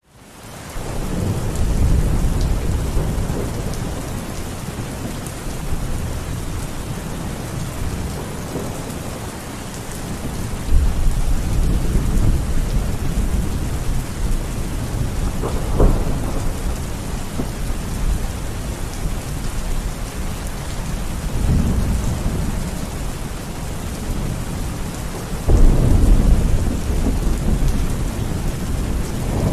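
Steady heavy rain falling, with thunder rumbling several times and one sharper crack about halfway through.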